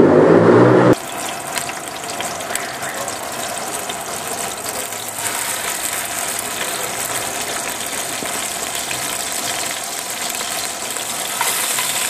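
An electric blender motor running loudly and cutting off about a second in, then raw chicken pieces sizzling and crackling steadily in hot oil in a metal cooking pot.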